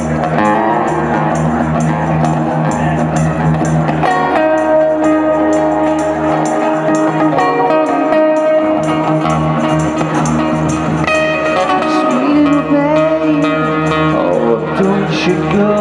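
Acoustic guitar and tambourine playing a slow blues-rock song, the tambourine shaken on a steady beat; from about four seconds in, long held melodic notes ride over the chords.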